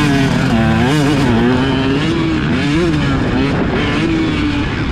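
KTM motocross bike's engine revving hard under the rider, its pitch climbing and dropping several times as the throttle is worked through turns and rollers.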